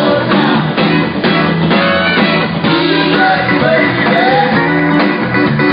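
Live rock band playing in a club, with electric bass, guitar and keyboards under a male singer's voice, picked up by a phone in the crowd.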